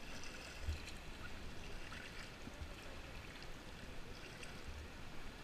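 Water sounds of an inflatable kayak being paddled on a river: soft paddle splashes and flowing water, with a few brief low thumps.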